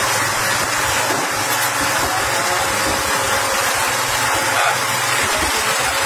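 An engine running steadily, with a low hum under a dense, even noise.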